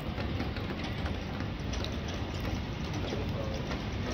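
Steady outdoor background noise with a low rumble and a few faint distant voices.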